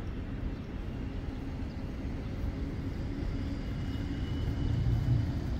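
Geneva tram running with a steady low rumble that slowly grows louder, and a faint thin high tone coming in during the second half.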